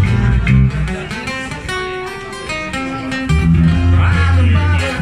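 Live acoustic guitar and electric bass playing an instrumental passage of a rockabilly-swing tune. The bass thins out about a second in, and the playing gets quieter. It comes back strong after about three seconds.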